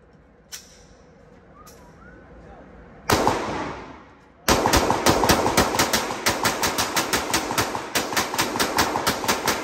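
A semi-automatic handgun fired indoors. A single shot about three seconds in rings on for about a second. From about halfway a fast, unbroken string of shots follows, about five a second, as the magazine is emptied.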